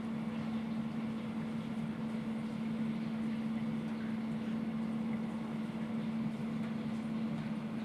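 Homemade mist machine running: the small fan and ultrasonic mist maker give a steady, unchanging hum with one constant tone.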